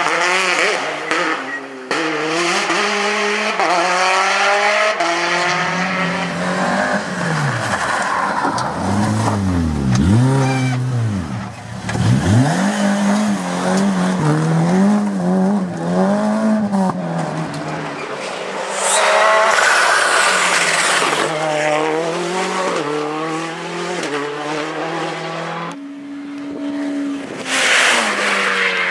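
Rally cars at full stage pace, engines revving hard and climbing in pitch through repeated gear changes. About ten seconds in, one passes close by with its pitch dropping.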